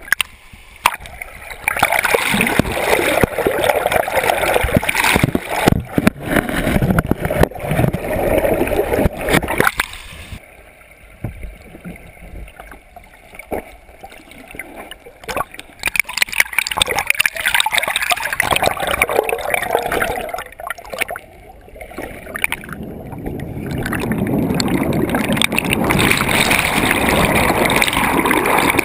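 River water rushing and gurgling, heard muffled through a GoPro's waterproof housing held underwater, with knocks and clunks as the housing moves about. The bubbling grows steadier and louder near the end.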